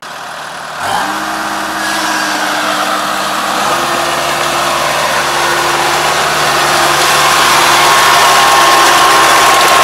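Rice combine harvester's engine running steadily as the machine crawls on its tracks through soft mud, coming in about a second in and growing louder toward the end, with a slight shift in its note partway through.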